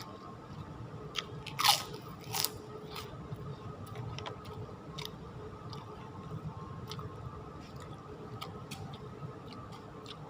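Close-up chewing and biting of ketoprak, with wet mouth clicks throughout and two loud crunches about two seconds in, over a faint steady hum.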